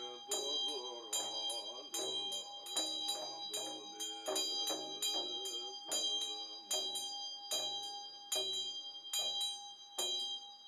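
Large chöd damaru, a double-headed hand drum, rattled in a steady beat of about two strokes a second, with a Tibetan hand bell ringing over it and a man's voice chanting beneath.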